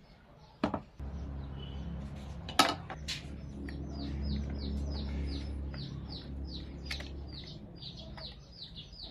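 A bird chirping over and over, short falling chirps several a second, with two sharp knocks of something being handled, the louder about two and a half seconds in, over a steady low hum.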